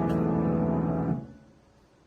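Piano holding a loud final chord, which cuts off abruptly a little over a second in as it is released, leaving near silence.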